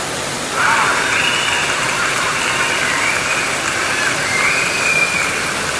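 Steady hiss of heavy rain falling on pavement, with faint wavering higher tones over it from about half a second in.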